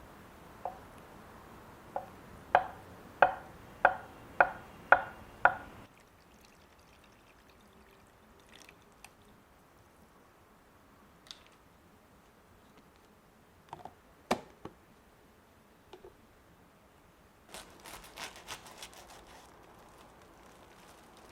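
Kitchen knife chopping on a cutting board: about seven steady, evenly spaced chops, followed by scattered light clicks and a single sharper knock of utensils in the kitchen.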